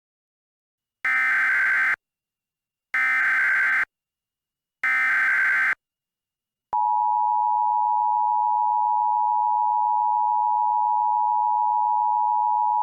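Emergency Alert System alert tones: three buzzy data bursts of the SAME header, each about a second long and about a second apart. About halfway through, the steady two-tone EAS attention signal starts and holds.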